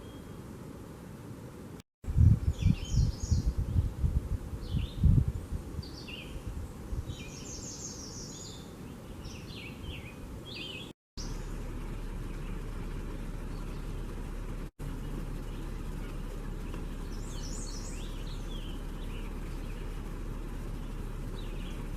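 Small birds chirping and calling in short high phrases, with loud low rumbles of wind buffeting the microphone for a few seconds early on. After a sudden break about halfway through, a steady low hum sits under more scattered chirps.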